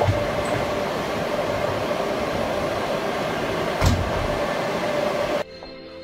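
Steady rushing fan noise from racks of running broadcast equipment and computers, with a constant hum, and a single knock about four seconds in. Near the end it cuts off suddenly and gives way to quieter background music.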